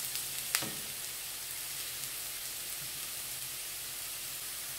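Sliced onions sizzling steadily as they fry and brown in coconut oil in a nonstick frying pan, with a single light click about half a second in.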